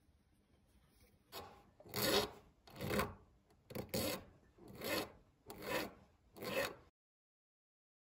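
Small hand file rasping across a gold bracelet link in seven even strokes, about one every three-quarters of a second, starting about a second in and stopping near the end.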